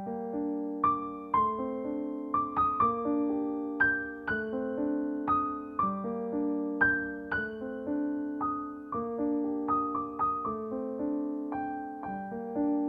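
Background music: a slow keyboard melody of single notes, each struck and fading, over held chords, in the manner of an electric piano.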